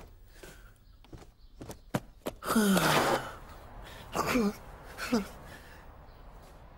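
A cartoon character's wordless vocal sounds: a loud falling moan about two and a half seconds in, then two short falling grunts. A few light clicks come just before the moan.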